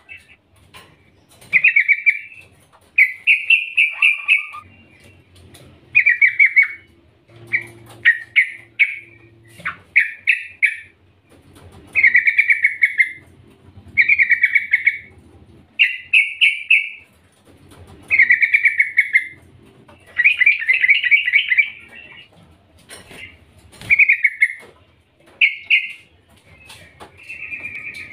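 Female yellow-vented bulbul (trucukan) calling: short, loud chattering phrases about every two seconds, each a quick run of notes. This is the female's call to a male, used to get male bulbuls singing.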